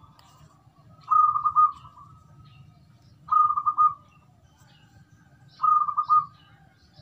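Caged zebra dove (perkutut) cooing: three short phrases about two seconds apart, each a quick rolling run of notes.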